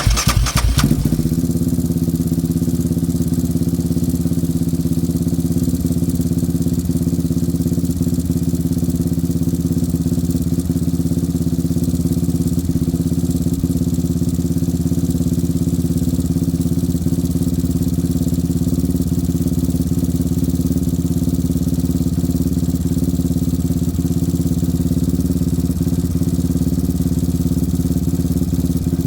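Yamaha Raptor 700 ATV's single-cylinder four-stroke engine catching with a brief flare and settling into a steady idle, run after the new oil tank has been filled so the oil circulates before the level is checked again.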